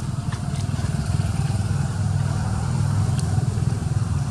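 A steady low engine rumble runs throughout, with a few faint ticks above it.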